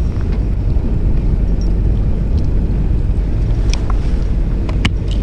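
Fishing boat's engine running with a steady low rumble, with wind on the microphone. A few light clicks come near the end.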